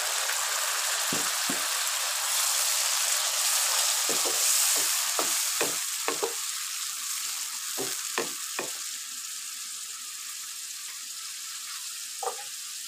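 Tomatoes, onions and green chillies sizzling in hot ghee in a wok, just after a splash of water was added, with a wooden spatula knocking and scraping against the pan as it stirs. The sizzle gradually eases over the second half, and the knocks come in a run and then once more near the end.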